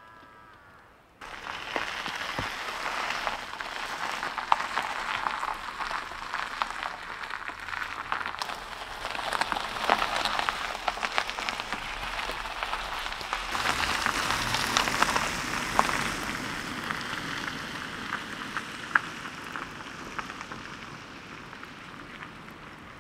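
Tesla electric car's tyres crackling and crunching over a gravel road as it drives past, with no engine sound. It starts suddenly about a second in, gets louder as the car passes close, and fades as it drives away.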